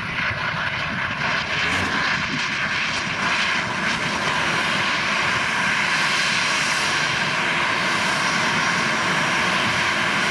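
Boeing 737's twin CFM56 turbofan engines running at low taxi thrust: a steady jet whine with several high tones over a rush of air.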